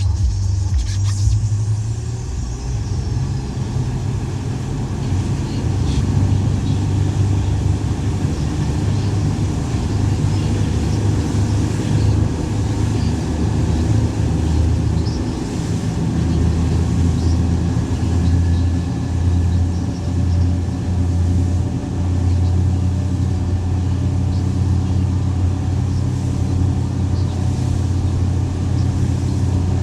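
Boat's outboard motor running steadily, a continuous low drone.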